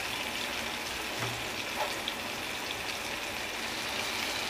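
Oil sizzling steadily around masala-coated rohu fish pieces shallow-frying on low flame, with a few faint clicks of a spatula in the pan.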